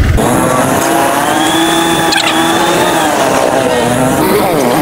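Motorcycle engine running at low road speed, its pitch drifting slowly, with a quick drop and rise in pitch near the end.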